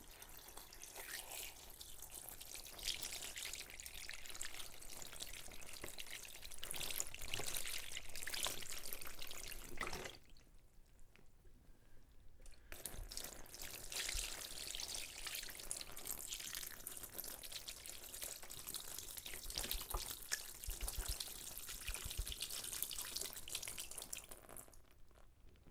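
Wet splashing and rubbing of a person washing themselves with water: a busy patter of small drips and splashes that breaks off for a couple of seconds near the middle, then carries on.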